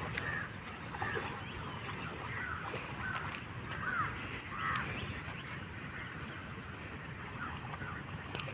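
A bird calling repeatedly in short, arching notes, about seven or eight times, over a steady outdoor background hiss.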